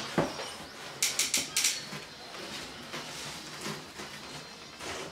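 Handling noise of a boxed heat recovery ventilator being shifted in its cardboard carton: a knock just after the start, a quick run of scratchy scrapes and crinkles about a second in, quieter rubbing, and another knock near the end.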